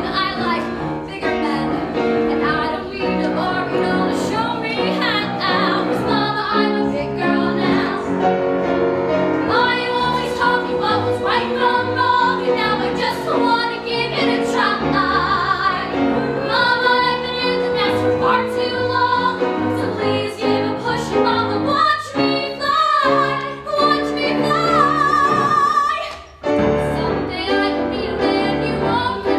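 Young female voices singing a Broadway show tune over instrumental accompaniment, with a brief break about 26 seconds in.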